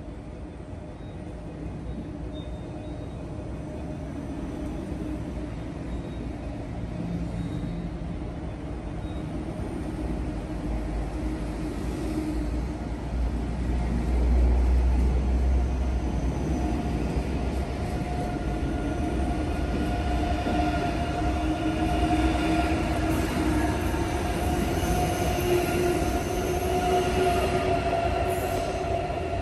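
Deutsche Bahn ICE electric high-speed train moving along an underground station platform: a low rumble with steady humming tones that builds up and is loudest from about halfway through.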